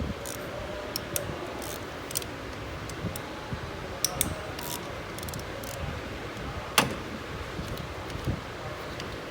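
Scattered light metallic clicks and clinks of tools and bolts while the air charge manifolds are unbolted from a Mercedes OM642 V6 diesel, with one sharper, louder clink about seven seconds in, over a steady background hum.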